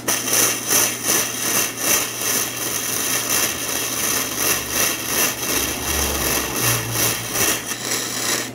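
Arc of a Seibi EG-M100Li lithium-battery gasless (flux-core) semi-automatic welder welding 3 mm steel at full voltage with the current raised, giving a steady crackling sizzle that cuts off right at the end. At this setting the wire feed keeps up and the weld penetrates deeply.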